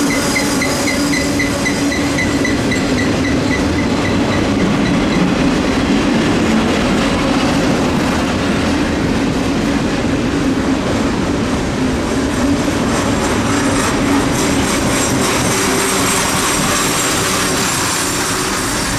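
Norfolk Southern freight train rolling past: a steady, loud rumble and clatter of wheels on rail. A grade-crossing bell rings rapidly for the first five seconds or so.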